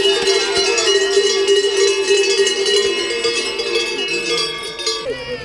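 Cowbells rung by spectators cheering on ski racers, many clanging at once in a steady ringing din that dies away near the end.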